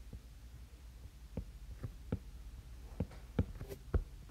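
Apple Pencil tip tapping and stroking on the iPad's glass screen: a series of light taps starting about a second in, over a low steady hum.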